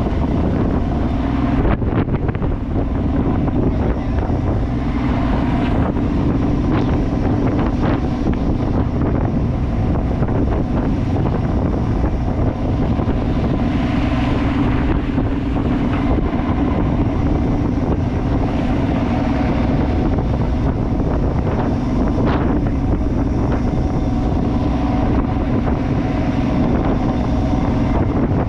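A fishing boat's engine running steadily, with wind buffeting the microphone and a few brief knocks.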